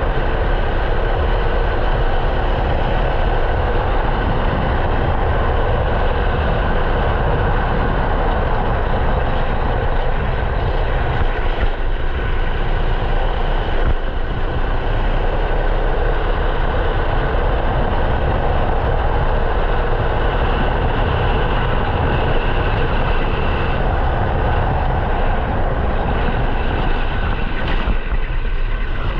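A 13 hp rental kart's engine running flat out, heard loud and close from on board, its pitch drifting gently up and down as the kart laps.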